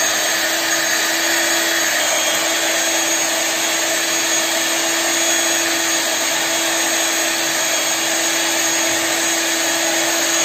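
Electric hand mixer running at a steady speed with an even motor whine, its beaters whipping cream in a steel bowl.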